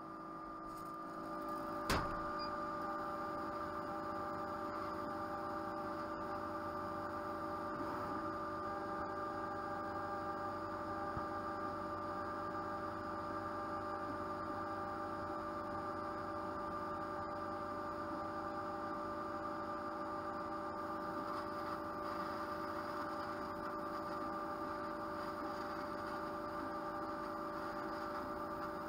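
Steady electrical hum made of several fixed tones, with a single sharp click about two seconds in.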